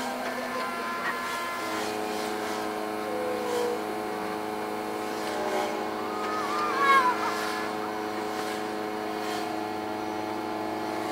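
Steady mechanical hum made of several held tones, which shift to a new set about two seconds in, with a few brief sliding tones and a short louder peak near the middle.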